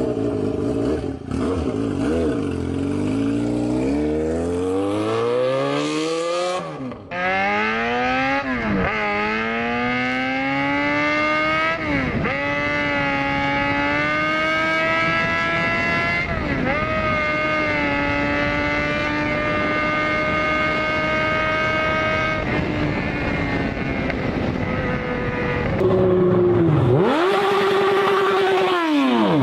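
Motorcycle engine accelerating hard. Its pitch climbs and then drops sharply at each gear change, about four times. It holds steady at high revs for several seconds, eases off, and revs up once more near the end before cutting off.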